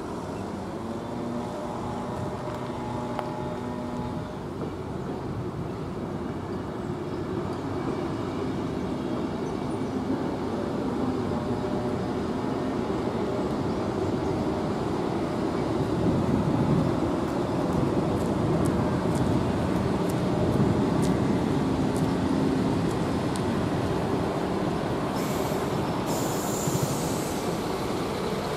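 Passenger train running slowly across the level crossing, its wheels and running gear rumbling more loudly about halfway through. Near the end a city bus pulls up close, with a brief hiss.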